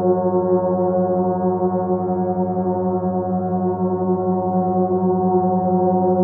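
A 50-inch Sound Creation gong sounding under friction mallets rubbed across its face: a continuous, steady drone of many layered tones with a slight pulsing, and no struck attack.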